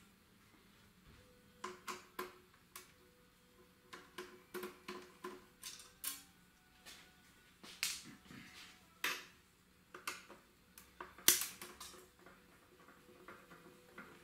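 Irregular light clicks and taps of small metal tools and parts being handled and set down on a workbench, starting about a second and a half in, with a sharper knock near the end.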